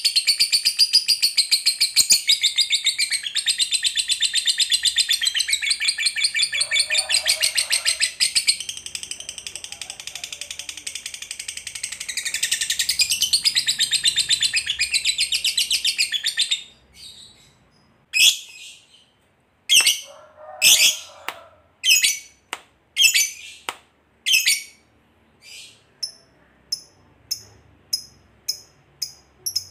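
Fischer's lovebird giving its long rattling chatter trill (ngekek panjang), a fast high-pitched chatter held unbroken for about sixteen seconds. It then breaks into separate short sharp chirps, which come quicker and shorter near the end.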